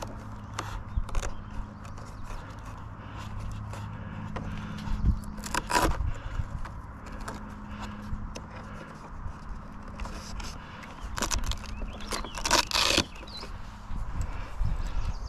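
Powered-up foam RC airplane giving off a steady low electric hum, which the pilot puts down to its digital servos or maybe the ESC. The hum stops about 14 seconds in as the flight battery is unplugged. Scraping and rustling of the battery being pulled from its hatch, with loud scraping bursts about 6 seconds in and again around 12 to 13 seconds in.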